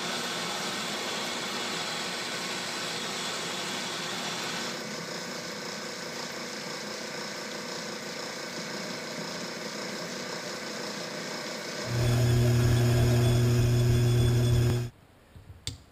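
Metal lathe running while a 1-1/8-inch reamer is fed into a collar held in its chuck. About twelve seconds in, this gives way to a louder, steady low drill press motor hum that lasts about three seconds and then cuts off suddenly.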